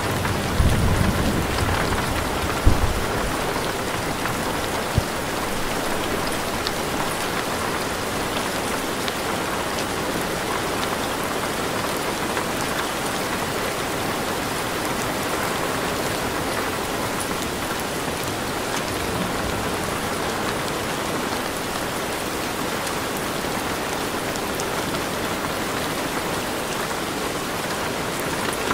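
Steady rain sound, an even hiss, with a low rumble and a couple of sharp taps in the first five seconds.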